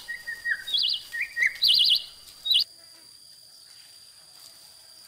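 Songbird calls: rapid trilled notes repeated several times, with a couple of lower notes between them. They stop abruptly about two and a half seconds in, leaving only a faint steady high drone.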